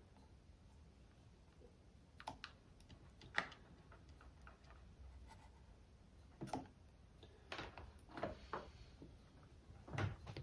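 Faint, scattered clicks and taps of small tools and parts being handled on a workbench, about half a dozen spaced a second or more apart.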